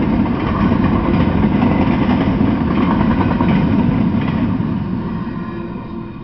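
Freight train cars rolling past on the rails, a steady rumble and rattle of wheels that fades over the last couple of seconds as the end of the train goes by.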